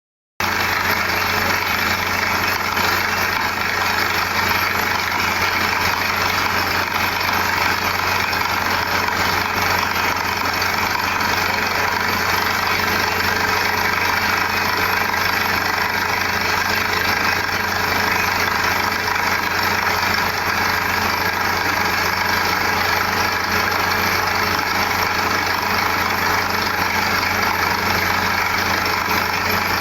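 Borewell drilling rig's engine running at a steady speed, a constant mechanical drone with a steady hum.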